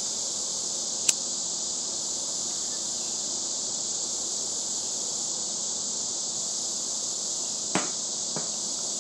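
Crickets chirping in a steady, unbroken chorus. A single sharp click sounds about a second in, and two softer clicks come near the end.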